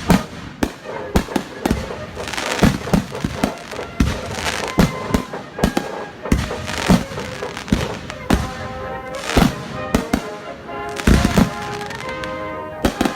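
Fireworks going off in a dense, irregular string of bangs and booms, several a second, with music playing underneath.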